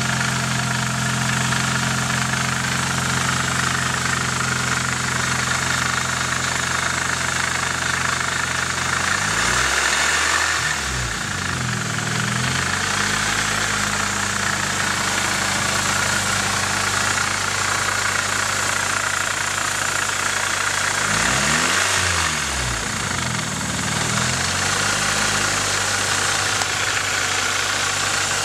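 Nissan 240SX's KA24DE 2.4-litre inline-four idling steadily with a constant high rattle over the engine note, blipped up in revs and back down twice. The owner questions whether the noise is the timing chain.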